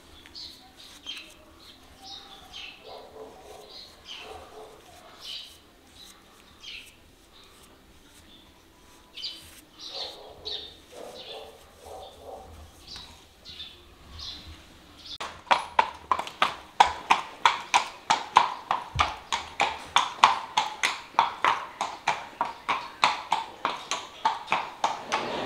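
Small birds chirping faintly, then, about fifteen seconds in, a shod horse walking on concrete: its steel shoes clip-clop in a steady, quick rhythm.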